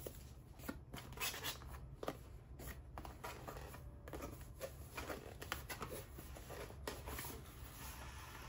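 Cardboard box being slid out of its tight outer cardboard sleeve: faint, irregular scraping and rustling of cardboard on cardboard, with small knocks.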